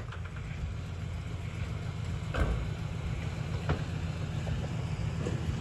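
GMC Sierra pickup's engine idling, a steady low rumble, with a sharp click about two and a half seconds in and a fainter one a little over a second later.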